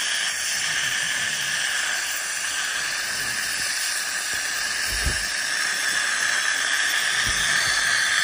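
Ultrasonic dental scaler running with its water spray, a steady hiss, as the tip scrapes tartar off the lower front teeth at the gumline.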